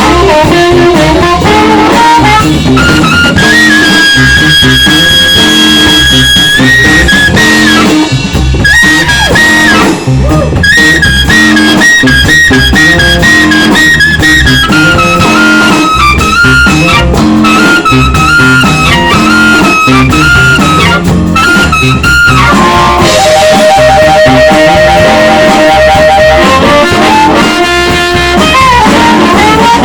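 Live electric blues band: amplified harmonica leads with long held notes and, near the end, a fast warbling trill, over electric guitar, bass and a drum kit.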